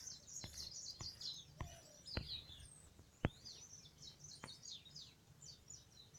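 Faint chirping of small birds: many quick, high, falling chirps, with a few sharp clicks among them.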